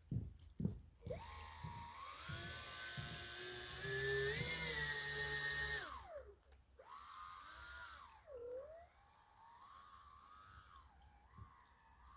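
Small electric motor and 5-inch propeller of a radio-controlled boat whining under throttle. Its pitch rises and falls as the throttle is worked: one long run of about five seconds, then shorter bursts that swell and dip.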